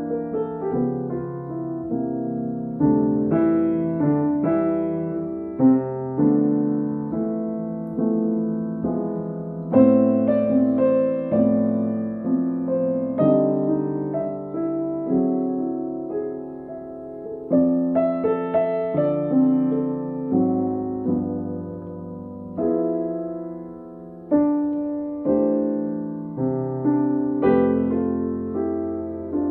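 Solo piano played slowly: chords under a melody, each note struck and left to ring and fade.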